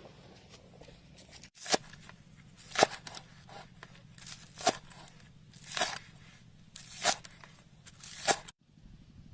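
Six sharp strikes spaced a little over a second apart, each led in by a brief softer rustle.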